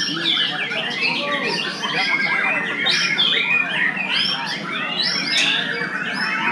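Many caged contest songbirds singing at once: a dense, unbroken chorus of overlapping whistles and trills.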